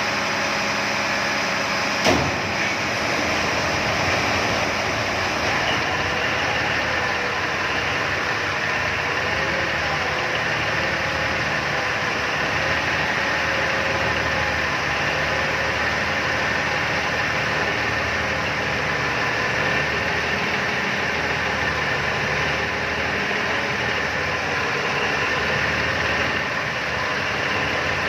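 Cummins KTA38-M2 V12 marine diesel main engine running steadily on a test run after its sea-water cooling pump seal was replaced. A single sharp knock sounds about two seconds in.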